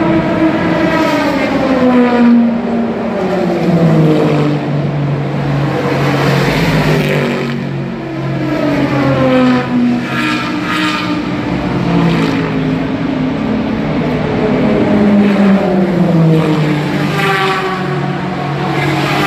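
Race cars passing at speed one after another, about six of them. Each engine note falls in pitch as the car goes by, and the passes overlap into a continuous racket.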